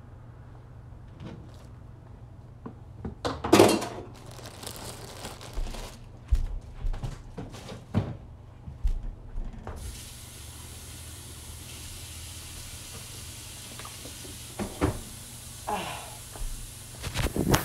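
Kitchen handling sounds: a loud clatter, then a string of knocks and thumps from utensils, dishes and cupboards over a steady low hum. About ten seconds in, a steady hiss starts abruptly and keeps going.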